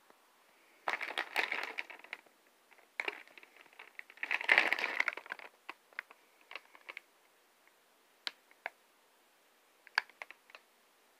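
Plastic film cookie package crinkling as it is handled and turned over. There are two longer bouts of crinkling, about a second in and around four seconds, the second the loudest, then scattered short crackles and ticks.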